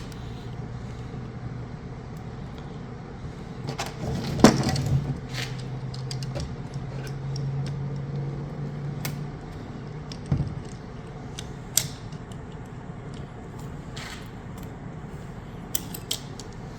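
Hand tool clinking and clicking against the metal cutting head as a shear pin is tightened inside the assembly. There is a louder flurry of clinks about four seconds in, then scattered single clicks, over a steady low hum.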